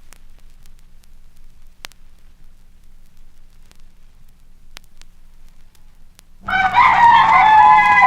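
Vinyl record surface noise with scattered clicks and a low hum, then about six seconds in a rooster starts crowing loudly, one long call whose pitch bends and wavers.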